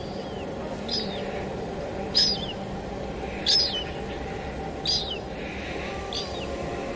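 Steady rainfall with a bird calling over it: five short, high chirps, each with a falling tail, about one every second and a quarter.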